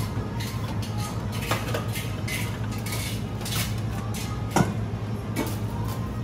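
Metal kitchenware clinking and clattering as steel skewers, bowls and trays are handled on a stainless steel counter, with one sharper knock about four and a half seconds in, over a steady low hum.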